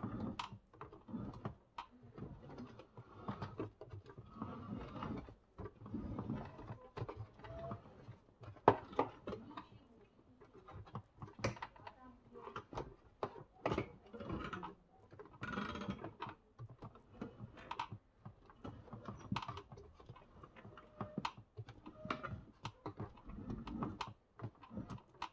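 Homemade cable steering for an outboard motor being worked by hand: a gaming steering wheel turning bicycle cables over pulleys as the outboard swings on its transom mount. Quiet, irregular clicking, knocking and rubbing of plastic and metal parts.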